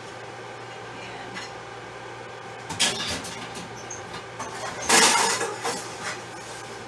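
Cookware being handled in a kitchen: a sharp clank about three seconds in and a louder clattering scrape around five seconds, over a steady low hum.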